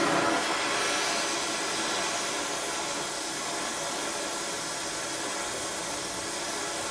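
Gas torch flame burning with a steady rushing hiss as it heats a steel crank web, expanding it for a shrink fit onto the crank pin.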